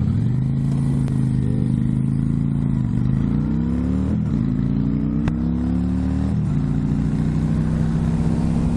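Motorcycle engine running on the move: its pitch rises about three seconds in and drops back at a gear change, rises again and drops at a second shift about six seconds in, then holds steady. A short click about five seconds in.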